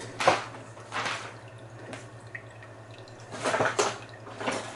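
Small 50-watt electric water pump running with a steady low hum, pushing water through a clear hose. A few short handling noises come over it: the loudest just after the start, others around a second in, at about three and a half seconds, and near the end.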